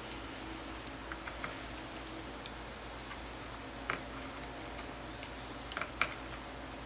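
Scattered small metal clicks and ticks of a T-handle hex key turning the cover bolts of a belt-driven fuel pump, heard over a steady hiss.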